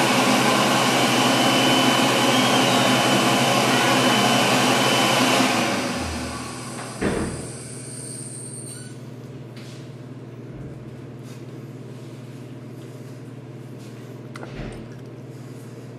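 Loud, steady rushing noise that fades away about six seconds in, then a single thump, leaving a quieter steady low hum with faint scattered clicks.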